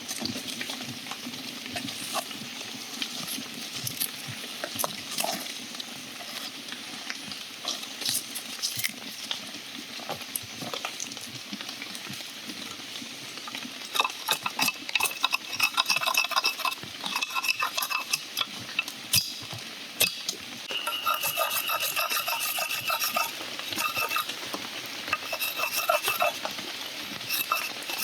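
Outdoor cooking: a utensil stirring and scraping in a pan or pot, with clinks of metal and food sizzling underneath; the clicks and scrapes get busier partway through.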